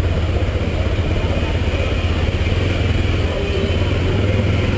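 Honda CBX 250 Twister's single-cylinder four-stroke engine running steadily while the motorcycle rolls slowly through traffic, its pitch holding level.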